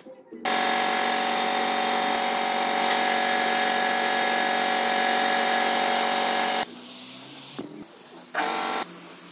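Compressed-air paint spray gun hissing with a steady whistle while spraying paint, for about six seconds, then cut off sharply. A short burst from the trigger follows near the end.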